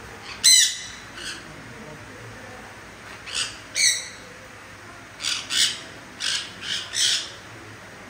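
Sun conures giving short, high, harsh calls, about nine in all: a loud one about half a second in, two more around three and a half to four seconds, and a quick run of five in the last three seconds.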